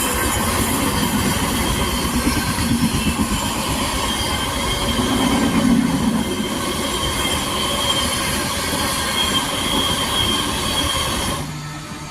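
Train running on the rails: a loud continuous rumble with steady high-pitched squealing tones from the wheels. It cuts off abruptly near the end, leaving a quieter low hum.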